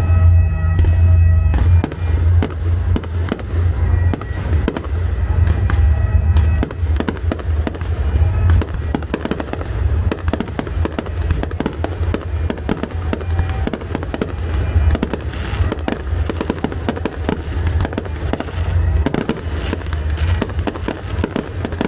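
Fireworks display: aerial shells bursting in quick, irregular succession, a dense run of bangs and crackles with deep booms.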